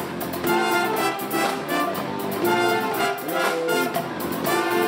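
Pep band playing a tune: horns over a drum kit keeping a steady beat.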